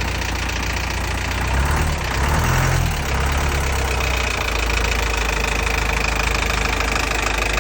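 Freshly overhauled engine running after its rebuild: it is revved up briefly about two seconds in, then settles back to a steady idle.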